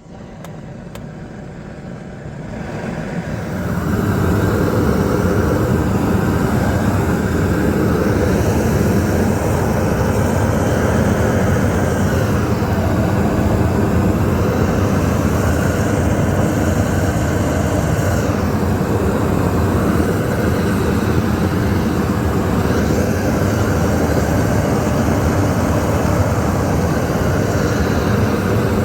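Gas torch roaring as it heats torch-on bitumen (isogam) roofing membrane. It builds up over the first few seconds, then holds steady and loud.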